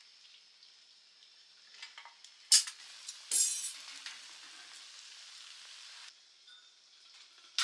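An egg frying in a metal pan, with a steady sizzle. A sharp tap comes about two and a half seconds in, the sizzle surges loudly just after it, and it falls away about six seconds in.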